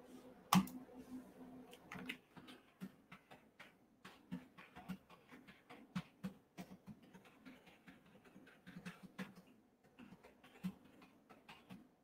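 Typing on a computer keyboard: a fast, irregular run of key clicks, with a single louder click about half a second in.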